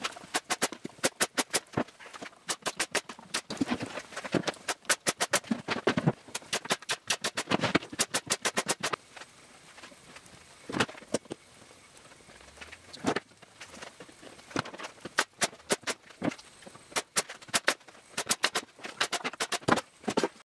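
Pneumatic brad nailer firing brads into plywood box joints: quick runs of sharp shots, several a second. After about nine seconds the shots thin out to single clicks and short runs.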